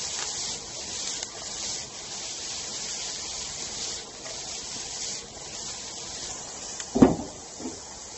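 Shredded cabbage and carrots sizzling in a frying pan as it is tossed over a gas flame, the hiss swelling with each toss. About seven seconds in there is one loud knock, followed by a smaller one.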